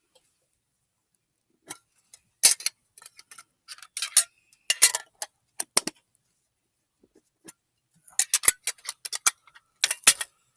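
Foil wrapper of a Pokémon card booster pack crinkling and tearing in short, irregular crackles as the pack is opened.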